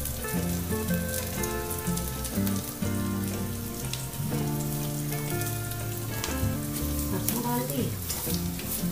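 Sliced onions sizzling and crackling in hot oil in a kadhai as a tadka is made, with mustard seeds added to the oil. Low held notes that change pitch every second or so run underneath.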